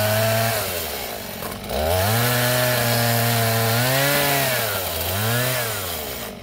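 Small Stihl two-stroke chainsaw cutting into coconut palm fronds. It revs, eases to idle about a second in, revs again for about two seconds, then gives two short blips of the throttle and drops back toward idle near the end.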